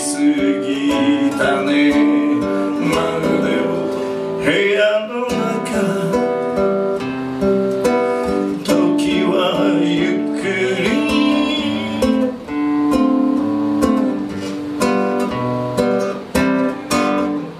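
A man singing live and accompanying himself on a classical guitar, picking and strumming chords under long held vocal notes.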